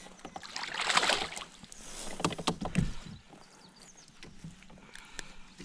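Water splashing, then several sharp knocks and low thumps, with a loud knock at the very end.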